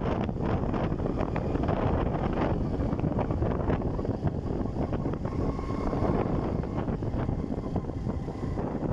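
Wind rushing over the microphone on a moving Kymco 125 Super 8 scooter, mixed with the steady running of its single-cylinder engine.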